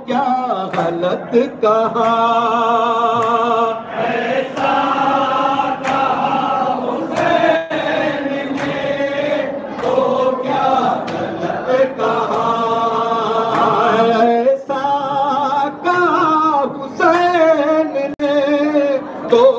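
A group of men chanting a nauha (Shia lament) in unison with wavering held notes, with sharp hand slaps of matam (chest-beating) keeping a steady beat.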